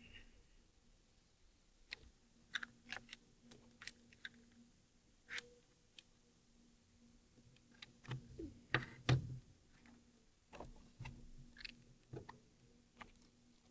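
Irregular small clicks and light knocks, a few heavier thuds about two-thirds of the way in, over a faint steady hum.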